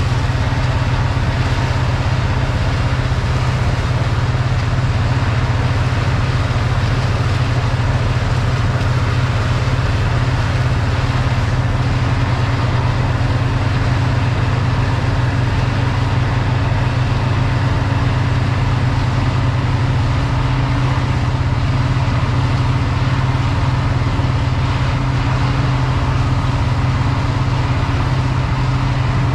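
A heavy engine running steadily at a constant speed, a loud low hum that holds the same pitch throughout.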